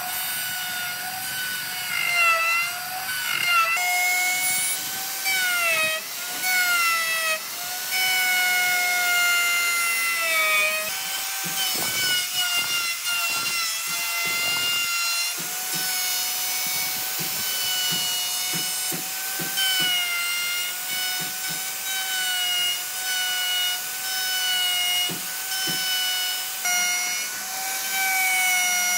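Electric plunge router running at high speed and cutting into reclaimed railway-sleeper hardwood. Its motor whine dips in pitch and recovers again and again as the bit bites into the wood, with bursts of rough cutting noise in the second half.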